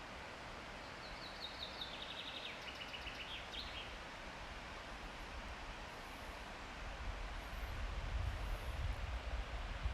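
A small songbird sings one phrase of rapid repeated notes stepping down in pitch, ending with a short upturn, over a steady outdoor hiss. Near the end, a low uneven rumble rises under it.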